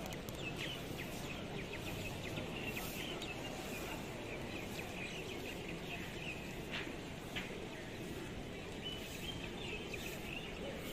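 Steady outdoor ambient noise with small birds chirping in short calls throughout, and two sharp clicks a little past the middle.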